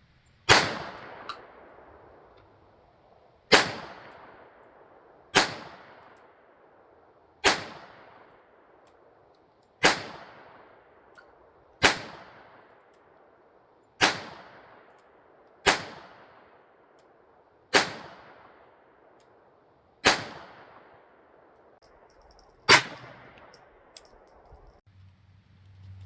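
Ruger LCP II Lite Rack .22 LR pocket pistol fired in slow single shots, eleven cracks about two seconds apart, each trailing off in a fading echo.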